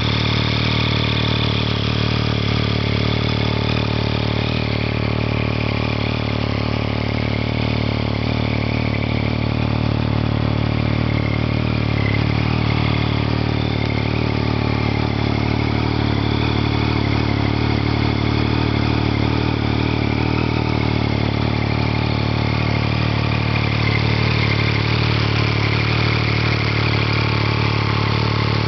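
Triumph Street Triple R's 675 cc inline-three engine idling steadily through an Arrow aftermarket exhaust.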